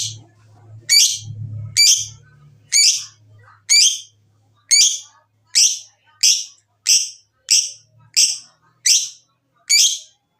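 Lovebird giving a series of short, shrill chirps, about thirteen of them roughly a second apart, coming slightly faster toward the end.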